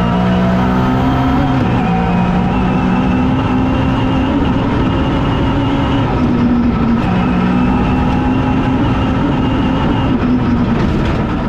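Toyota GT86 rally car's FA20 flat-four engine running hard at high revs, its pitch dropping and climbing with several gear changes.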